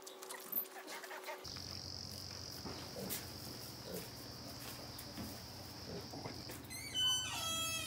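Insects droning steadily at a high pitch, with faint scattered taps. Near the end a short run of descending musical tones cuts in.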